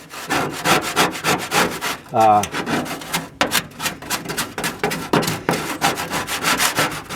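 Hand scraper scraping caked rust and grease off the bottom pan of a gas grill in rapid, repeated strokes, several a second.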